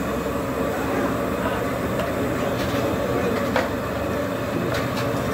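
Steady background rumble and hum of a busy street-food stall, with a few light clicks near the middle and near the end.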